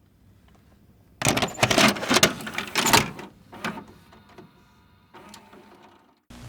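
Mechanical sound effects: a run of loud metallic clanks and knocks starting about a second in, a fading ring, then a steady low machine hum that begins near the end.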